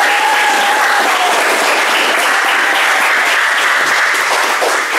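Audience applauding: steady clapping from a roomful of people.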